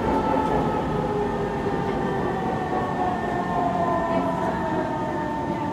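Kawasaki C151 MRT train's traction motors whining inside the car, the whine falling slowly in pitch as the train slows, over a steady rumble of wheels on track.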